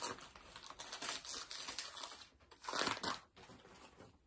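Gift wrapping paper crinkling and tearing as a present is unwrapped by hand, with a louder rustle about three seconds in.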